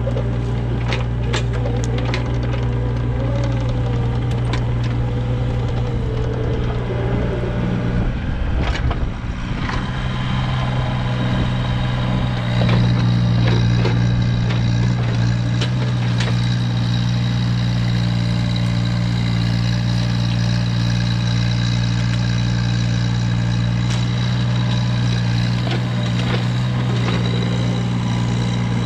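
An engine running steadily at idle, with scattered clicks and knocks over the first several seconds. About nine seconds in it dips briefly, then runs on a little louder.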